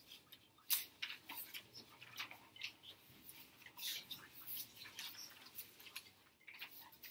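Scattered soft rustles and light clicks, like papers being handled and people shifting about, with one sharper click less than a second in.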